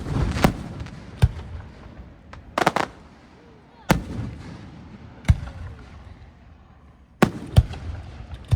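Aerial firework shells bursting: a series of loud booms, about ten in all, some in quick pairs or clusters, each trailing off into a rolling echo.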